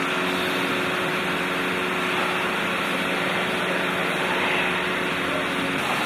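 Large gantry CNC router for wood and foam running: a steady mechanical hiss with a low multi-tone hum underneath. The hum stops just before the end while the hiss goes on.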